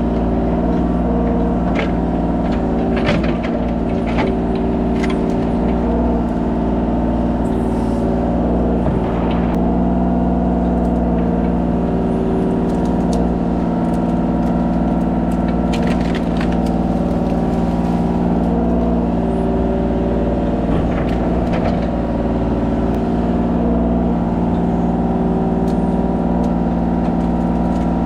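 Kubota mini excavator's diesel engine running steadily at working revs, with scattered knocks and clatter from the machine at work.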